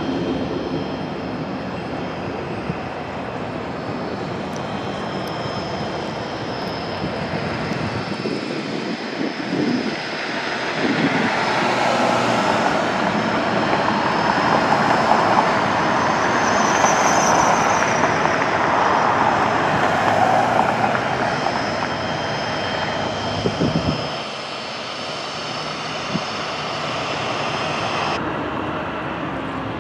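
Single-engine propeller light aircraft on landing approach. Its piston engine grows louder as it passes low, is loudest from about 12 to 22 seconds in, then fades.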